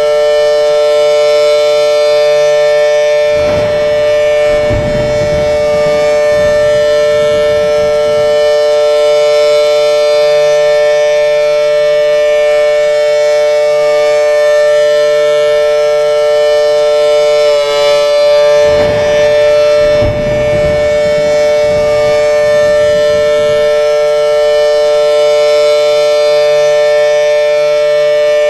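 Air raid siren sounding a continuous steady tone for an alert, holding one pitch throughout, with a brief wobble in pitch partway through.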